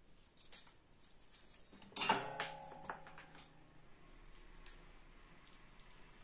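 A metallic clink about two seconds in, ringing briefly, with a few soft clicks and taps around it.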